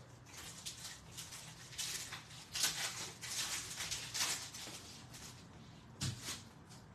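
Foil wrapper of an Upper Deck Synergy hockey card pack being torn open and crinkled by hand: a run of crackly rustles over a couple of seconds, then one more short rustle with a soft thump near the end.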